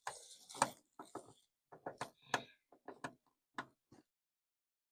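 Hand-fitting a car light part into place: a string of sharp clicks and small knocks, irregularly spaced, as it is worked around to find the hole and slid down. About four seconds in the sound cuts out completely as the microphone drops out.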